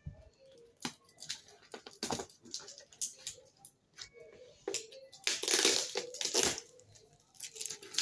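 Cardboard box being opened and handled by hand, with scattered taps and scrapes. A louder rustling scrape of cardboard and packaging comes a little past halfway.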